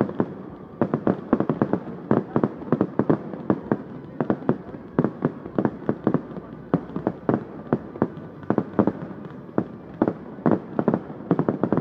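Fireworks display firing a rapid, irregular string of sharp bangs and pops, several a second, with a short lull just under a second in.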